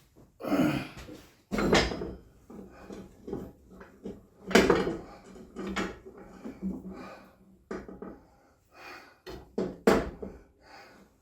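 Irregular knocks and clatter: a dozen or so sharp, separate hits spread unevenly over several seconds, the loudest about a second and a half, four and a half, and ten seconds in.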